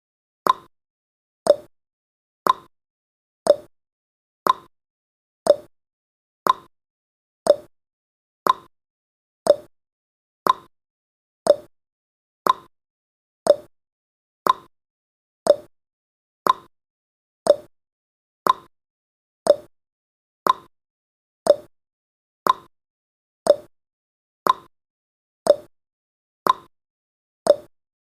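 Countdown timer's clock tick sound effect: a short sharp click once every second, alternating between a higher tick and a lower tock.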